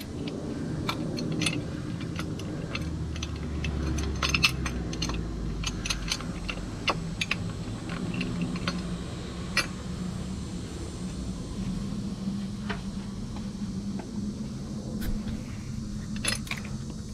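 Irregular light metallic clinks and taps of a small socket and bolt against the engine's aluminium thermostat housing as the bolt is started by hand, over a steady low hum.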